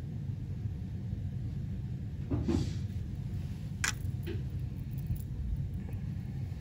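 Steady low background rumble, with a brief rustle about two and a half seconds in and a sharp click near four seconds, then a fainter knock, as the stone dental model in its articulator and the porcelain brush are handled.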